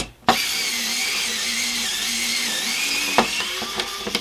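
Small cordless electric screwdriver running, with a steady whir and a wavering high whine, backing out the screw that holds a 3D printer's filament sensor. It starts abruptly, runs for about three seconds, then carries on more quietly near the end.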